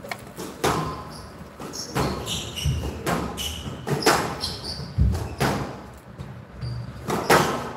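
Squash rally: the ball cracking off the rackets and the court walls about a dozen times, each hit ringing briefly in the hall. Between the hits come short high squeaks of court shoes on the floor.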